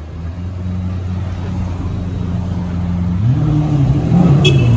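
Lamborghini Aventador's V12 idling steadily, then a throttle blip about three seconds in, the pitch rising and falling back. A short sharp click near the end.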